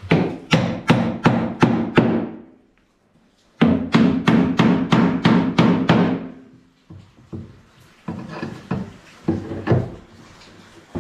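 Claw hammer striking a wooden kitchen cupboard in two quick runs of blows, about three a second, each blow followed by a short ringing from the cabinet. A few fainter taps come near the end.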